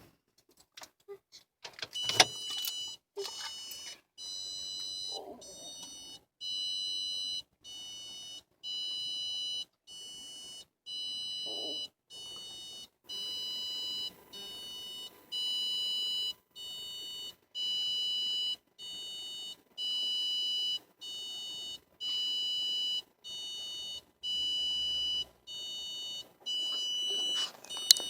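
A 2015 Hyundai Accent's electronic warning beep sounding with the engine switched off: a steady train of high-pitched beeps, roughly one every 1.2 seconds, alternately louder and softer, for nearly half a minute. A click comes just before the beeping starts and another as it stops near the end.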